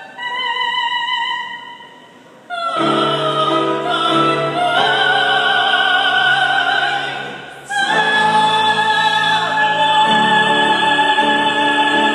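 Classical vocal trio, a soprano and two male voices, singing a Filipino song in operatic style with vibrato. A quieter passage for about two seconds gives way to all three voices coming in together loudly. They break off briefly a little past halfway and return on a long held chord.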